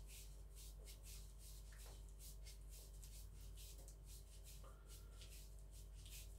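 Faint, rhythmic rubbing and rustling from hands twisting the foam grips of a wrist roller as its cord winds up a hanging weight plate, over a steady low hum.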